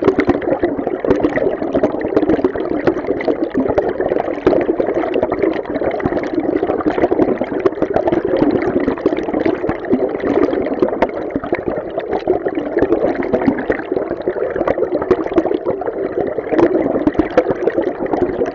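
River water rushing and gurgling, heard through an underwater microphone: a steady, dense, muffled rush with constant small bubbling flickers.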